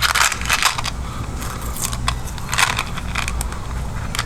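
Plastic product packaging crinkling and rustling in the hands in irregular bursts, with small metal hardware clicking and rattling inside.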